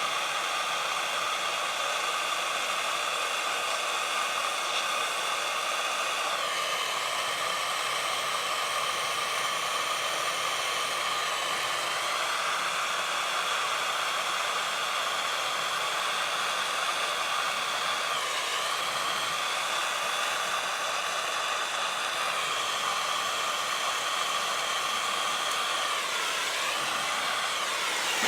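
Handheld gas torch flame burning with a steady hiss, heating a fluxed solder repair on a radiator; its pitch dips briefly a few times as the flame shifts.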